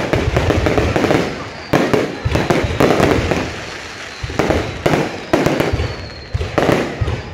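Aerial firework shells bursting overhead: sharp bangs with crackling between them, a dense barrage at first, then single bangs every half second to a second.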